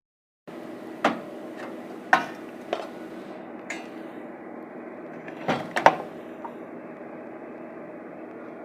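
Arc welding: a steady buzzing hum and hiss with sharp, irregular pops and cracks, about six of them, the loudest around one, two and six seconds in.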